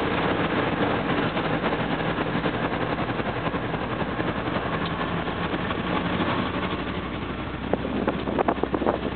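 GE Evolution-series ES44 diesel locomotives rolling slowly past, their V12 diesel engines running with a steady rumble. A run of sharp clicks and knocks comes near the end.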